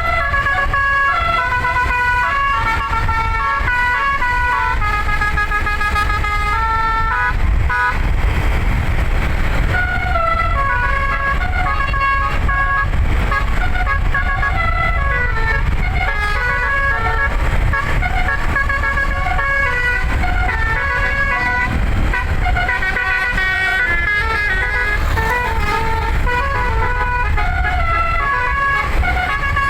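An eleven-note 'telolet basuri' musical air horn playing a melody, stepping quickly from note to note, over a steady low rumble. About a third of the way in there is a brief hiss.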